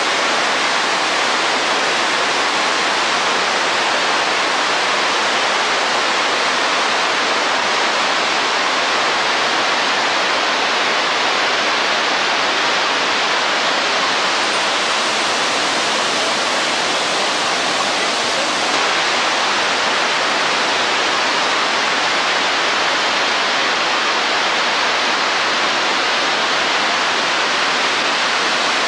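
Water pouring steadily over a river weir, the horseshoe-shaped Pulteney Weir on the River Avon, giving a continuous even rush of falling water.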